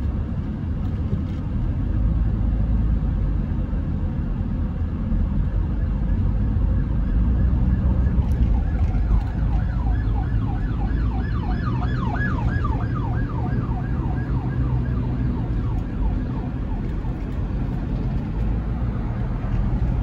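Steady low rumble of a car driving on the road. From about eight seconds in, an emergency vehicle's yelp siren joins it, a fast rising-and-falling wail about three or four times a second, and it fades after several seconds.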